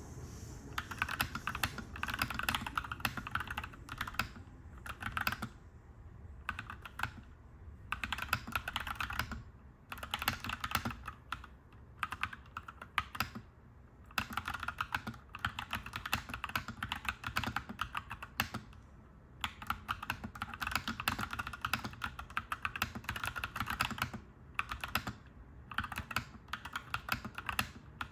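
Clacky mechanical keyboard being typed on in bursts of rapid keystrokes with short pauses between them, over a low steady rumble.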